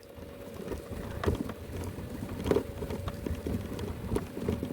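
Electric mobility scooter running at speed over rough ground: a steady motor whine with a low rumble and scattered knocks and rattles as it bumps along, and wind on the microphone.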